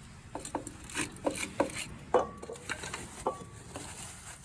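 Paper towel rubbing and scraping over greasy metal splines on an ATV's rear brake assembly, with scattered light clicks and two short metallic rings about two and three seconds in.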